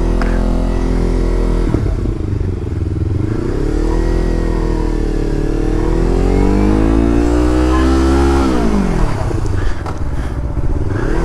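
Motorcycle engine pulling away and revving through the gears: the revs climb, dip, climb for several seconds, then fall sharply before rising once more near the end.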